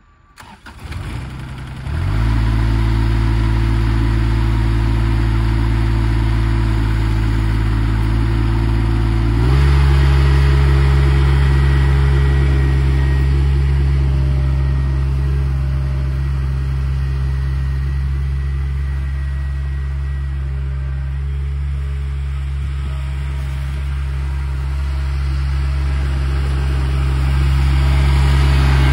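New Holland compact tractor's diesel engine starting up, catching about two seconds in and running steadily. About nine seconds in the revs step up, and the engine runs at the higher speed while the tractor pushes snow with its front blade. It grows louder near the end as the tractor comes closer.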